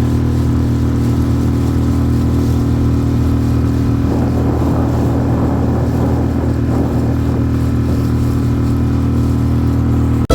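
Mercury outboard motor running at a steady speed, driving an inflatable boat under way. A rushing hiss swells about four seconds in and fades by about seven.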